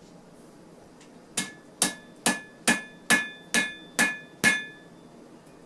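Blacksmith's hammer striking the hot forge-welded wire-rope steel on the anvil, smoothing out the handle. The eight even blows come about two a second, starting about a second and a half in, each with a short metallic ring.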